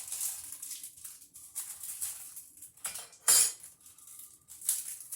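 Metal outlet cover plates clinking and rattling as they are handled, with a sharper clink about three seconds in.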